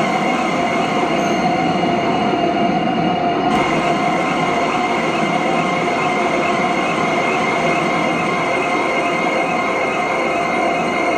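Electronic soundscape of a contemporary dance score: a steady, dense noisy drone with held high tones running through it. The upper range fills in and brightens a few seconds in.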